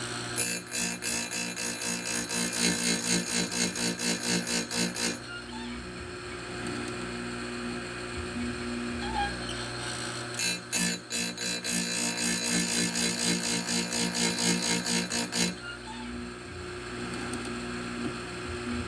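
Oregon bench chain grinder motor running with a steady hum, its stone grinding a chainsaw chain's cutter teeth in two passes of about five seconds each, just after the start and about ten seconds in. Each pass is a loud rasp pulsing about three times a second.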